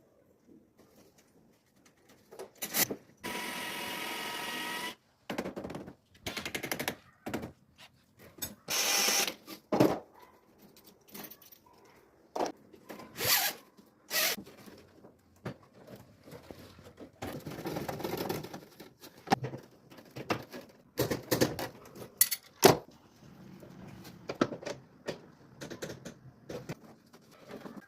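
Intermittent installation work with hand and power tools: a cordless drill or driver runs steadily for about two seconds, followed by a short loud burst and scattered knocks, clatter and scrapes from parts being fitted.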